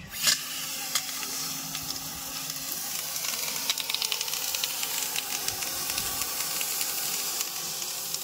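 Small electric water pump starting up and running with a steady hum, while pressurised water jets and sprays out with a loud hiss past a thumb pressed over the end of its outlet pipe. The thumb cannot hold back the pump's pressure. The sound starts suddenly as the pump switches on.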